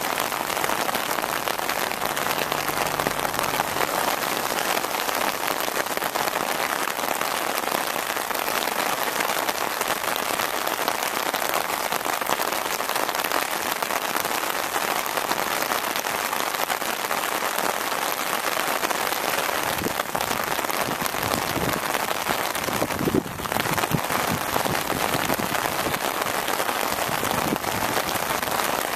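Steady rain falling, an even hiss of drops, with a brief low bump about three-quarters of the way through.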